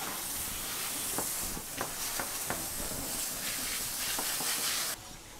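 Garden hose spray nozzle hissing as it sprays water over a swordfish's skin and the wet deck, with scrubbing strokes of a stiff brush, as the fish is rinsed and scrubbed clean before filleting. The spray cuts off suddenly about five seconds in.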